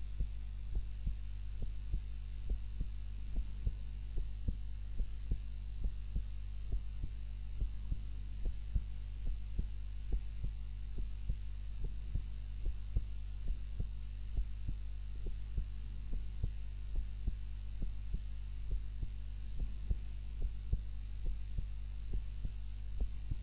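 A sleeping woman's heartbeat, heard while she lies on her back: a regular lub-dub in pairs of low thumps, about once a second, over a steady low hum.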